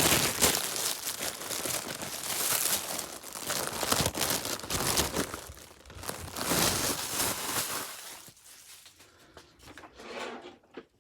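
Plastic packaging crinkling and rustling as it is handled, with a tearing quality. It eases off after about eight seconds into a few light clicks.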